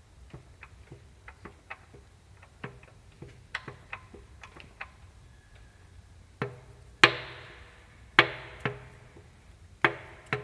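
Metallic knocking from the pistons of cylinders two and three in a Mazda CX-7 engine: a piston knock. Light irregular clicks at first, then from about six seconds in, a few much louder knocks, each with a short ringing tail.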